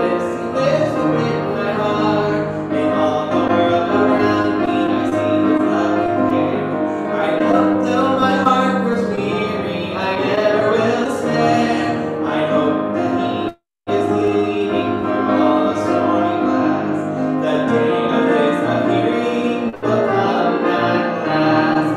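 Keyboard music played continuously, with held notes and chords. The sound cuts out completely for a split second a little past halfway.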